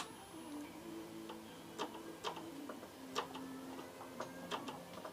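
Light, irregularly spaced clicks and taps, about a dozen in five seconds, from the Suzuki GSX-R600's rear brake pedal being pushed and released: the freshly freed-off pedal returning without sticking on.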